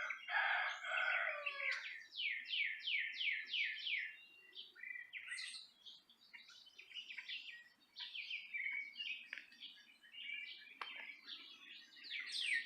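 Songbirds singing outdoors. A run of about eight quick, down-slurred whistled notes comes about two seconds in and starts again near the end, with scattered chirps between, and there is a brief lower, fuller call at the very start.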